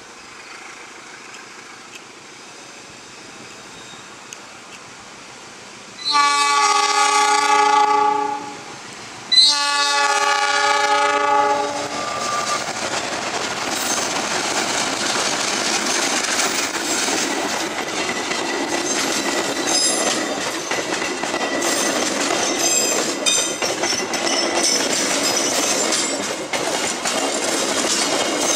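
CC 206 diesel-electric locomotive sounding its multi-note horn in two blasts of about two to three seconds each, about six and nine seconds in. The train then passes close at speed, with a steady rush and the wheels clicking over the rail joints.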